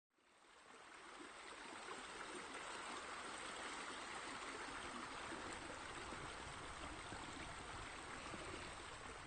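Steady rush of running water, fading in from silence in the first second and then holding even.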